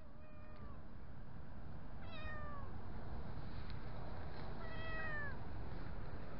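A cat meowing three times, a couple of seconds apart, each meow falling in pitch at its end, over a steady low rumble.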